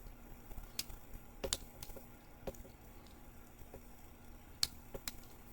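Faint, irregular clicks of a lock pick and tension wrench working the pins of an Abus 80TI/50 padlock that is held in a false set, about seven sharp ticks spread unevenly.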